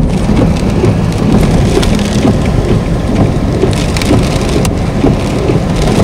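Car tyres crunching and rumbling over a gravel road, heard from inside the cabin, with a few sharp ticks.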